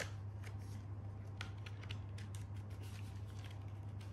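Light, scattered clicks and taps of a thin cardboard phone-box insert being handled and opened to get at the charging cable, over a steady low hum.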